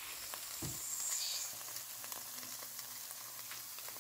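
Freshly air-fried, BBQ-sauced chicken wings sizzling in the air fryer basket: a steady fine hiss with many tiny crackles and pops.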